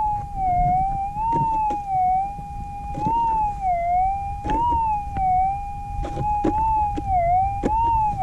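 Minelab GPX 6000 metal detector's threshold tone, a steady hum that rises and dips in pitch again and again as the coil is swept back and forth, with light clicks between. It is a weak, doubtful target response that could be a deep nugget or just ground noise.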